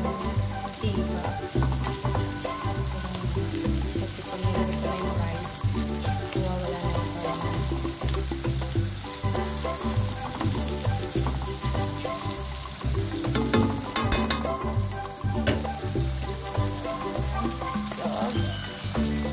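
Diced ham, carrots and garlic sizzling in oil in a wok as they are stir-fried with a spatula, with a short run of sharper scrapes and taps of the spatula on the pan about two-thirds of the way through. Background music with a steady bass beat plays underneath.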